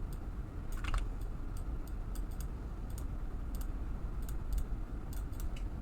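Irregular light clicks from a computer mouse and keyboard, a dozen or more spread unevenly, over a low steady background hum.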